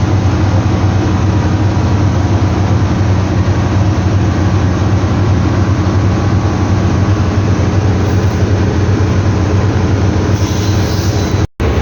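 Loud, steady running of machinery with a deep hum, unbroken except for a brief dropout near the end.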